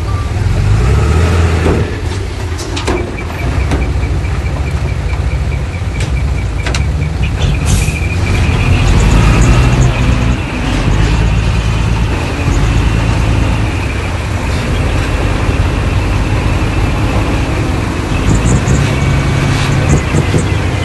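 Heavy diesel earthmoving machinery working: a deep, steady engine rumble with a few sharp metallic clanks and a faint regular ticking for a few seconds early on.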